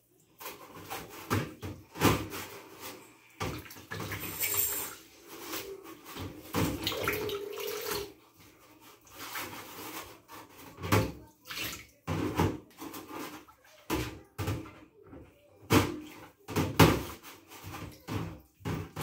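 Dishes being washed by hand in a stainless steel sink of water: water sloshing and splashing, broken by many short knocks and clinks of dishes in the sink.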